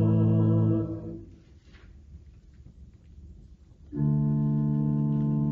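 Pipe organ chords in a church: a held chord releases about a second in and dies away in the room's echo, then after a short silence a new sustained chord sounds at about four seconds in.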